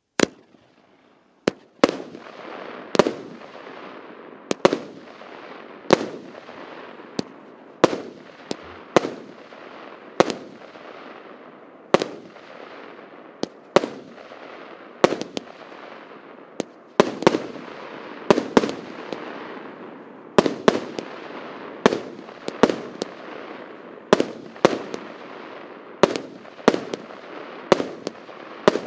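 A 100-shot 1.0-inch fireworks cake (Russkaya Pirotekhnika PC7510 'Sto v odnom') firing shot after shot: sharp bangs roughly one a second, coming faster in the second half, over a steady hiss. After the first bang there is a short gap before the rest follow.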